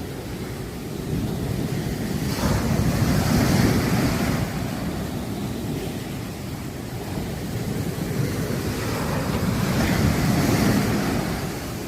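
Sea waves breaking and washing up on a beach. The surf swells loud twice, about three and ten seconds in, with quieter wash between.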